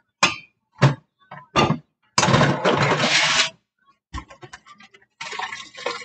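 Water from a kitchen sink tap running in two short spells, splashing into the sink, with a few knocks and clinks of dishes in the first couple of seconds.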